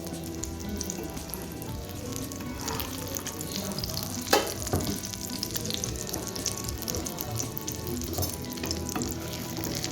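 Masala egg omelette frying in oil in a pan: a steady sizzle with fine crackling. There is one sharp knock about four seconds in.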